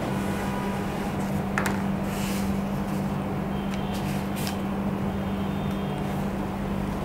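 Steady low hum over a low background rumble, with a few faint clicks.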